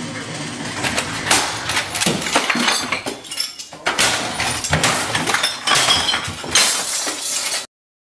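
Repeated crashing and breaking impacts with glassy clinks, as things on a computer desk are smashed. The sound cuts off suddenly near the end.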